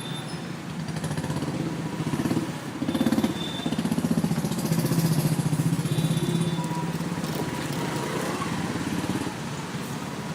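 Dense street traffic in a jam, with motorbike and other vehicle engines running close by, their engine note rising and falling. A couple of brief faint high tones are heard in the mix.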